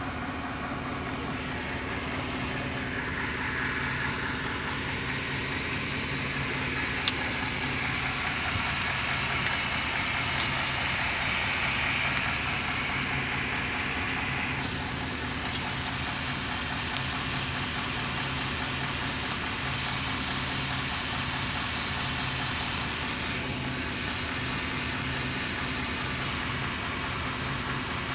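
1993 Chevy van's 350 small-block V8 running steadily at around idle, with the knocking and vibration that the owner takes for a problem in the engine, possibly a balance issue. A single sharp click about seven seconds in.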